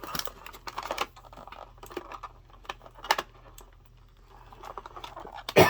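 Plastic action-figure packaging clicking and crinkling as the figure is worked loose from its tray and twist tie. A single loud cough near the end.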